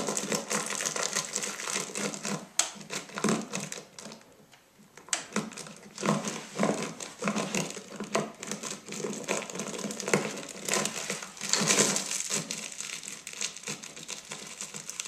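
Plastic fortune-cookie wrapper rubbed and crinkled against a microphone: a close, dense, irregular crackling that eases off briefly about four seconds in and then picks up again.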